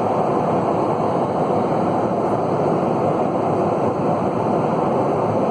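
Airliner cabin noise in flight: a steady, even rush of air and engine noise.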